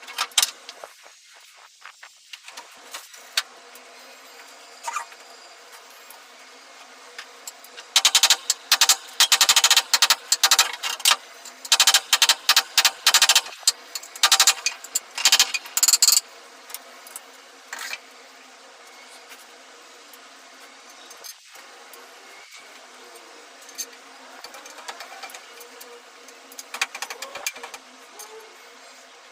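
Bursts of rapid hand scraping or rubbing strokes over a steady low hum, thickest in the middle of the stretch and again near the end.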